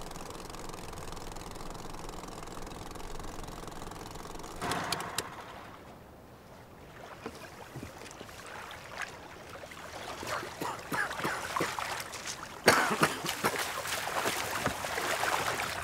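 Water splashing and sloshing in a shallow lake edge as a person kicks and wades through it, starting as scattered splashes and ending with a sudden loud splash about three-quarters of the way through and continued sloshing. A steady background noise fills the first few seconds.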